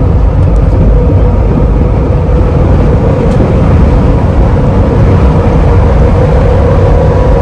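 Highway road noise inside the cabin of a lifted Jeep Wrangler JL on 37-inch mud tires at about 76–77 mph: a steady, loud low rumble with a constant hum from the tires, mixed with wind noise from the lifted body.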